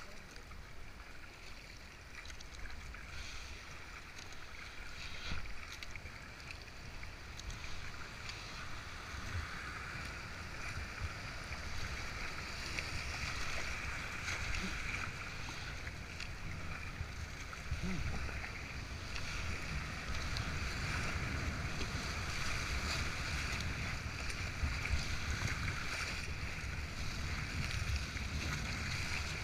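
Rushing white water of a flooded river rapid, heard from a kayak running through it. The rush grows louder about a third of the way in as the boat enters the waves, with wind buffeting the microphone underneath.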